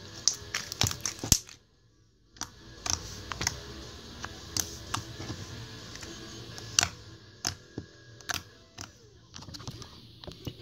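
White slime being poked and squeezed by fingers, making a run of sharp clicks and small pops, with a brief drop to near silence about two seconds in.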